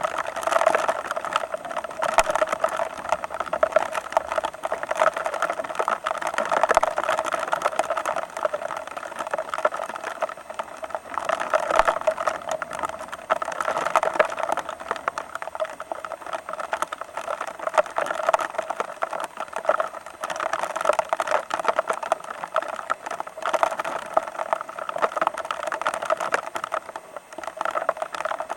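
A vehicle under way: a steady two-note hum over a constant rattle, with no change in speed.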